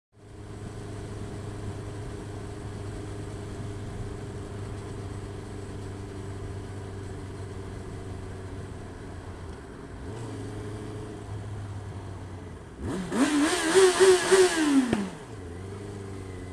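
Motorcycle engine running steadily, heard from the rider's onboard camera. Near the end an engine revs up hard, holds for a second or two and falls back, much louder than the steady running.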